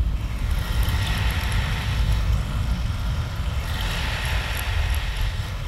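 Rushing, swirling water: a deep steady rumble with a hiss that swells and fades twice.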